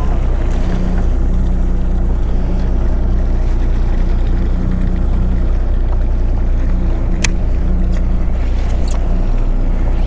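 Charter boat's engine running steadily with a low hum, with two sharp clicks in the second half.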